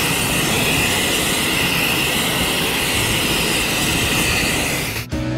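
Large long-wand propane torch burning at full flame with a steady, loud rush as it sears the outside of a steak. The sound cuts off suddenly near the end as guitar music comes in.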